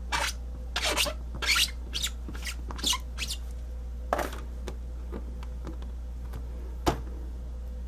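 Paper and stamping tools being handled on a craft table: a run of short rubbing and rustling sounds in the first few seconds, another a little after four seconds, and a single sharp click near seven seconds.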